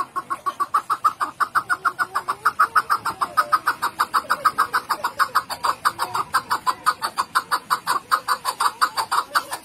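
Chukar partridge calling a long, fast run of sharp chuck notes, about six or seven a second, without a break.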